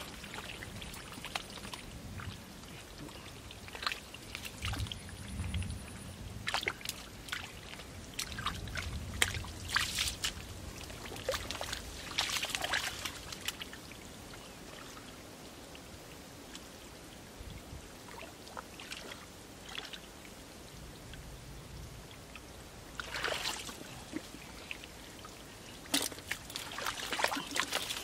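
Muddy water splashing and trickling as a person wades and works his hands through a shallow muddy ditch: irregular splashes and drips, quieter for several seconds midway, then a cluster of louder splashes near the end.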